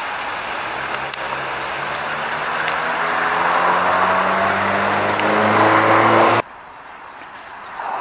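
Small stream waterfall splashing steadily into a pool, with a motor vehicle's engine getting louder and rising in pitch as it accelerates. Both cut off abruptly about six seconds in, leaving a quieter hush.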